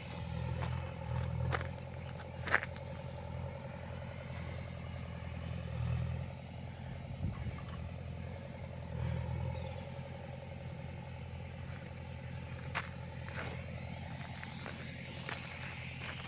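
A continuous high insect drone over a steady low hum that swells a few times, with a few sharp clicks; the strongest click comes about two and a half seconds in.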